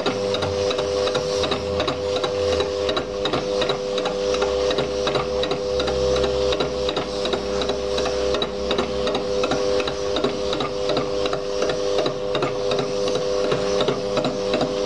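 Lathe fly-cutting a cast iron cylinder casting: the motor and gearing give a steady whine while the single-point cutter strikes the metal once each turn, making a fast, even ticking.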